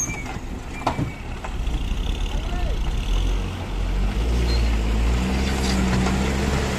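Diesel engine of a Hino Lohan dump truck running, its low rumble growing louder about a second and a half in and then holding steady.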